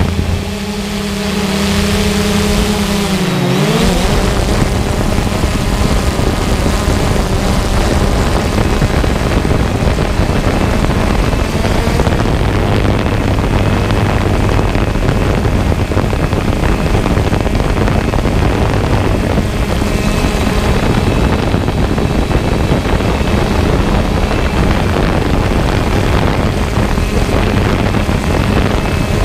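3DR Solo quadcopter's electric motors and propellers whirring in flight, heard close up from the drone's own camera. The pitch dips and swings back up about three and a half seconds in, then holds steady.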